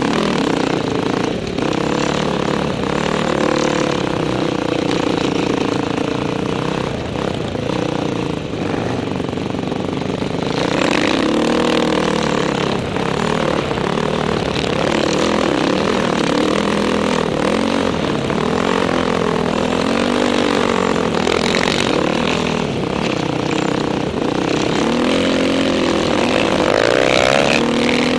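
Dirt bike engine running under changing throttle, its pitch rising and falling repeatedly as the rider revs and eases off.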